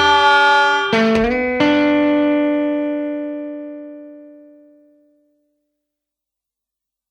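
Closing guitar chords of a blues song: a few quick strums, then a final chord left to ring and fade out to silence about five seconds in.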